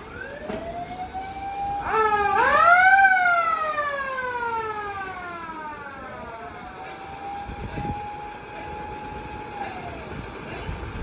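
Emergency-vehicle sirens sounding, including a mechanical motor siren winding up and down. One wail rises in pitch from the start. A louder one jumps up about two seconds in and slowly falls away. Another wail then rises, holds its pitch and drops near the end.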